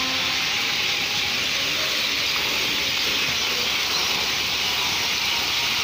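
Ornamental fountain's ring of water jets spraying and splashing into its basin: a loud, steady hiss.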